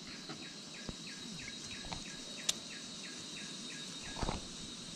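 Wild insect chorus: a steady high-pitched drone, with a short falling chirp repeated about three times a second. A single sharp click sounds about halfway through, and a soft knock comes near the end.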